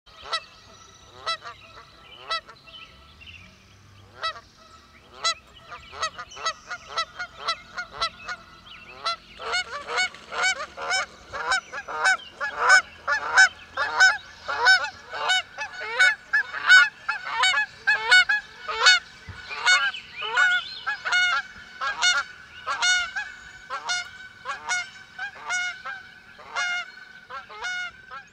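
A flock of geese honking: scattered single honks at first, then many overlapping honks in quick succession from about nine seconds in.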